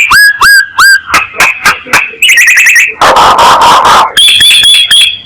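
Myna calling loudly as a lure call: three quick upswept whistles, then a run of sharp notes, a harsh rasping screech about three seconds in, and a held high whistle near the end.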